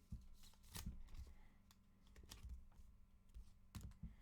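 Near silence with a few faint, sharp clicks and light taps, like small objects being handled on a table.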